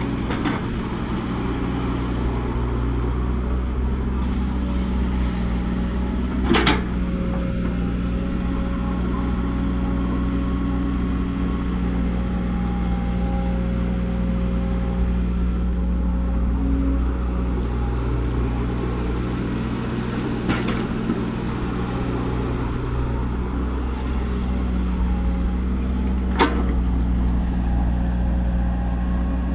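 Heavy construction machine's diesel engine running steadily, its pitch shifting slightly now and then, with a sharp knock about six and a half seconds in and another near the end.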